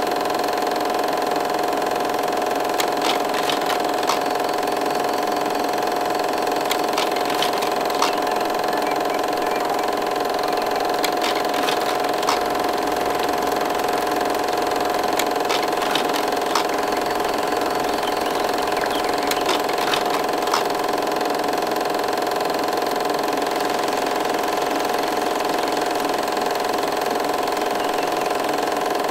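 A steady machine-like hum made of several held tones, with scattered faint clicks.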